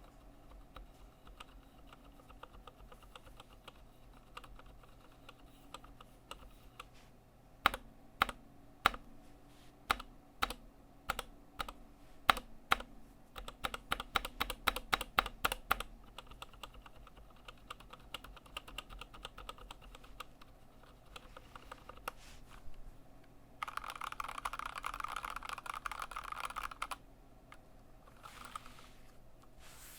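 Stock Anne Pro 2 mechanical keyboard with Kailh Box Red linear switches being typed on. Single keystrokes come about twice a second, then a fast run of keystrokes, then a few scattered presses, and near the end a dense rapid flurry of keys.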